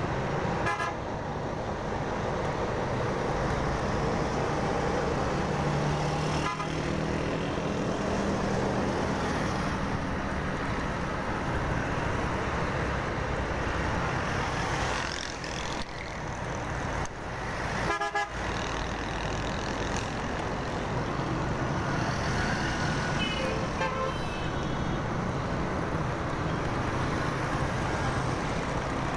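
Motorcycle engine running steadily while riding through busy city traffic, with vehicle horns honking now and then, short beeps about a fifth of the way in, just past halfway and again about three-quarters through.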